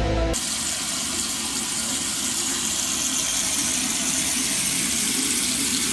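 After a snatch of music that cuts off at the very start, a handheld shower head sprays water onto a husky's coat in a steady hiss.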